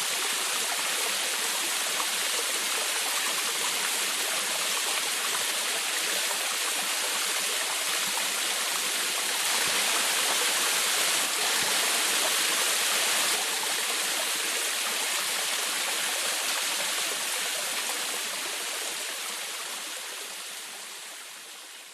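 Small forest waterfall splashing and rushing steadily, a bright hiss of falling water with little low rumble. It fades out over the last few seconds.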